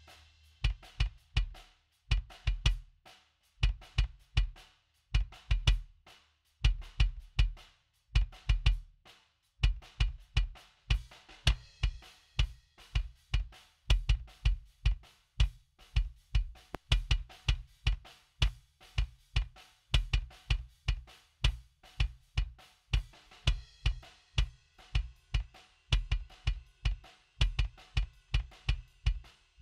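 Acoustic drum kit recording playing back: kick drum, snare and hi-hat/cymbals in a rock groove. The pattern starts in short broken phrases and settles into a steady beat about a third of the way in.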